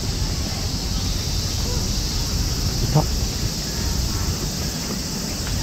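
Outdoor ambience dominated by wind rumbling on the microphone, under a steady high insect drone. A brief pitched sound stands out about three seconds in.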